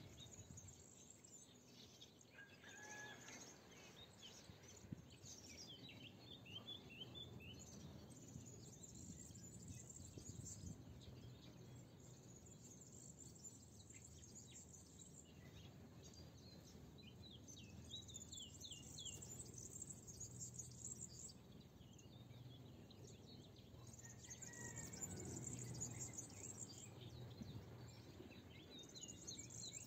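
Faint wild birdsong: bouts of short, high chirping trills that come and go several times over a low, steady background rumble.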